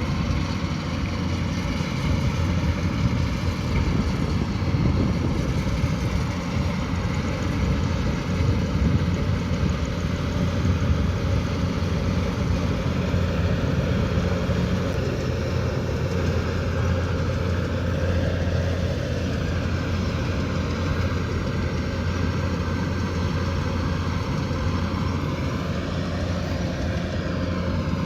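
Kubota DC108X combine harvester's diesel engine running steadily, a continuous low drone under a dense mechanical rush from the working machine.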